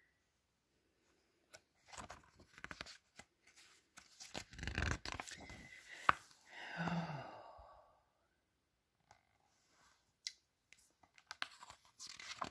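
Pages of a hardcover picture book being turned and pressed flat: paper rustling and crinkling in bursts, with a sharp click about halfway through.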